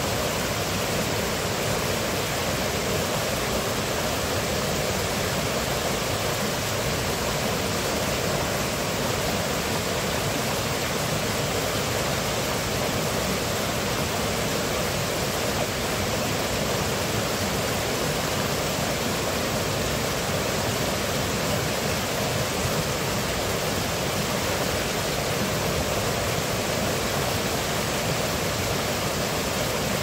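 Shallow rocky stream rushing and splashing over boulders in a steady, unbroken wash of water noise.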